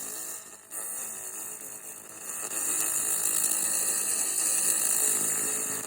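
Pulsed laser cleaner ablating rust off a steel scythe blade: a steady high-pitched hiss that drops out briefly under a second in, then runs on.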